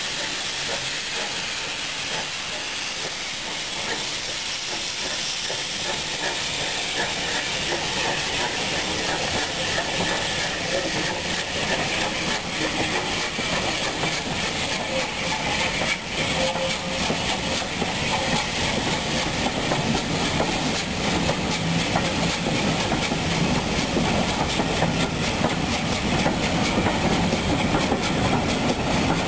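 Steam locomotive hauling a train, with a steady hiss of steam and exhaust that grows gradually louder as it comes closer. In the second half the carriages add a low rumble and wheel clatter on the rails.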